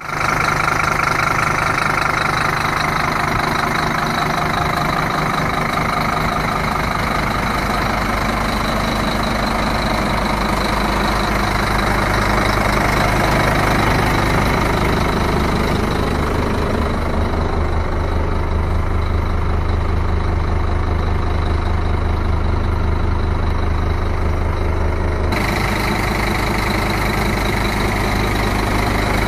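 Scania DC9 five-cylinder 9-litre diesel engine in a Scania P310 truck, idling steadily. The low rumble grows stronger from about halfway through, and the sound changes abruptly near the end.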